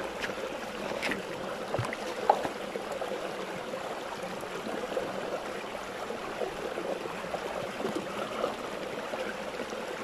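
Shallow, rocky stream running and babbling over stones in a steady rush of water, with a few faint clicks about a second and two seconds in.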